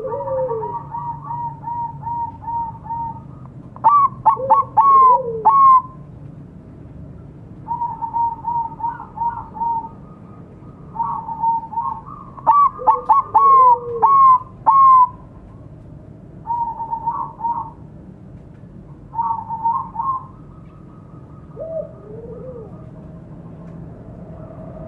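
Bangkok-type zebra dove (perkutut) singing its cooing song: repeated phrases of quick staccato notes with lower sliding coos between them. The phrases are loudest at about four and thirteen seconds in.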